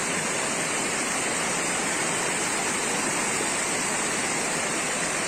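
Floodwater of a swollen river rushing past, a steady, unbroken noise of fast-flowing water.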